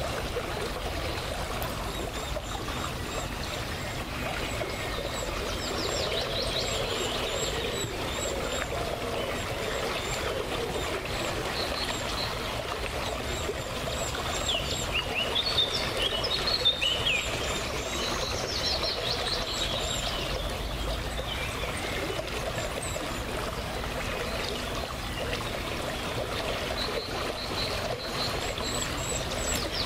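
A small river trickling and pouring past an old wooden weir, a steady sound of running water. Songbirds chirp on and off over it, busiest about halfway through.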